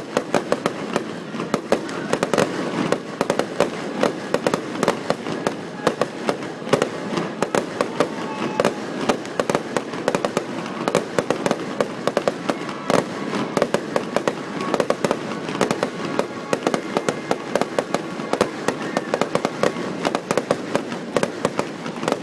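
Aerial fireworks display in a rapid, continuous barrage: many shell bursts and crackling reports a second, overlapping without a break.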